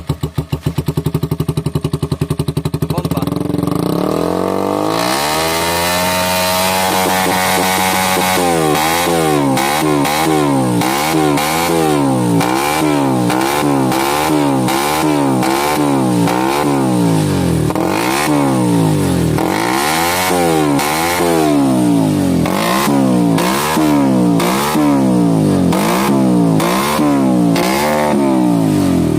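Motorcycle with an open racing exhaust pipe. It idles with a fast putter, climbs in revs over a few seconds, then is blipped up and down over and over, about once a second.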